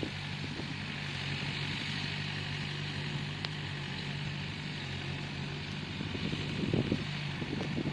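Bulldozer's diesel engine running steadily under load, with several short knocks near the end.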